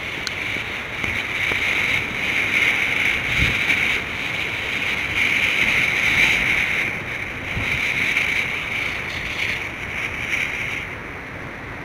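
A steady, fairly loud hiss that swells and fades, with a few faint low thumps.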